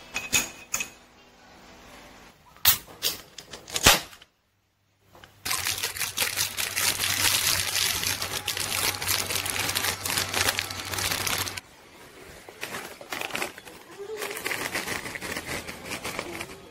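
A metal spoon clinking against a mug a few times while stirring, then a candy wrapper being crinkled as it is unwrapped for about six seconds, and near the end a plastic snack bag crinkling as it is handled.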